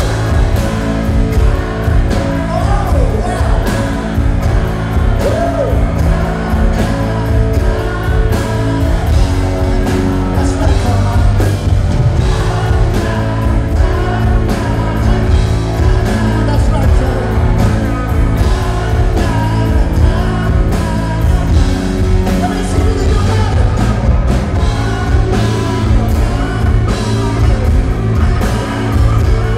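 Rock band playing live: a lead vocal singing over electric guitars, bass and a steady drum beat.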